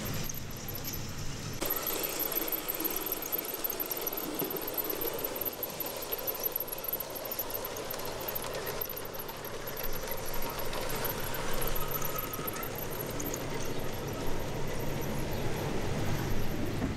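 LGB G-scale garden-railway train rolling along its track, with a continuous high-pitched squeal pulsing rapidly over the running noise.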